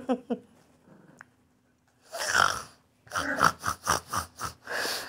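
Small puppy growling and huffing in play while it tugs at a sneaker: a few short yips right at the start, then throaty bursts, including a quick run of about six huffs a second in the second half.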